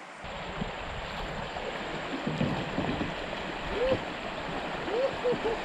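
River current rushing steadily past a kayak, with a few short bubbling gurgles about two thirds of the way through and again near the end.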